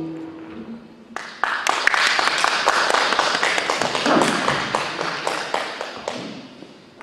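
The last acoustic guitar chord dies away, then an audience applauds for about five seconds, starting about a second in and tapering off.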